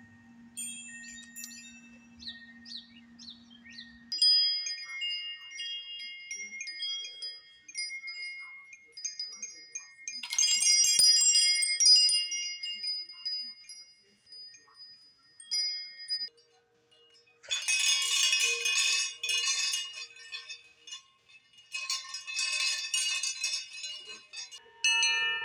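Metal-tube wind chimes set ringing by hand one after another: clear tones that hold and fade, with several bursts of busy, jangling strikes later on.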